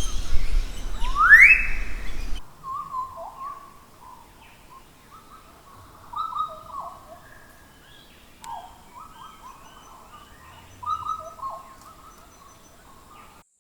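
Birds calling in rainforest. In the first two seconds there is one long rising whistled note over a low rumble. After that come spurts of short chirping notes with quiet gaps between them.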